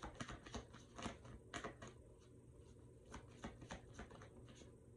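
Tarot cards being shuffled by hand: a run of faint, soft clicks and snaps, thick for the first two seconds and then sparser.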